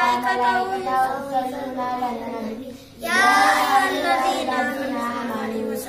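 A boy chanting melodically in long, drawn-out phrases. There is a brief pause a little before halfway, then a new phrase starts strongly.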